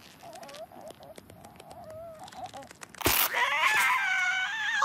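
Cartoon ostrich character's voice: a faint wavering warble, then about three seconds in a sudden loud whoosh followed by a long, shaky, loud squawk.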